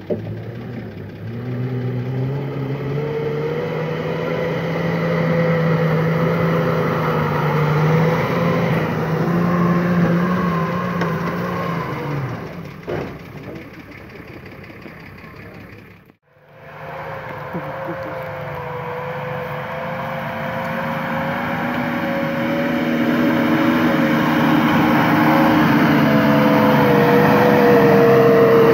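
Nissan Patrol's diesel engine pulling under load through mud, its pitch climbing and holding, then easing off. There is a brief dropout about two-thirds through, after which the engine builds up again under load.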